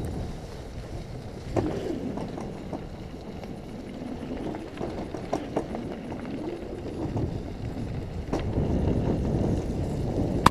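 Wind buffeting a bike-mounted camera's microphone over the low rumble of bicycle tyres rolling on a dirt road, with a few sharp clicks and rattles from bumps about a second and a half, five and a half and eight and a half seconds in.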